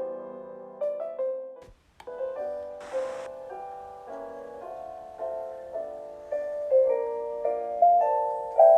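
Gentle solo piano background music in separate held notes, breaking off briefly just before two seconds in and then going on. A short hiss sounds about three seconds in.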